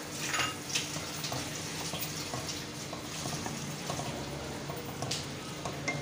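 Beef liver and yogurt sizzling wetly in a metal karahi while a spatula stirs it, with a few short scrapes of the spatula against the pan. The yogurt is being fried into the liver.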